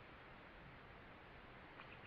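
Near silence: faint redwood forest ambience, a low steady hiss with no distinct events.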